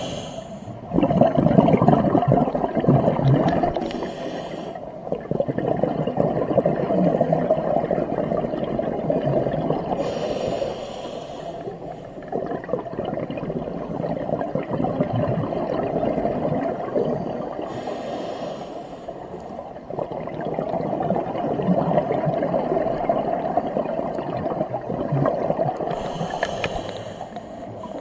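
Scuba diver breathing through a regulator underwater: a short hiss of inhalation four times, about every seven to eight seconds, with a long bubbling, gurgling rumble of exhaled air between the breaths.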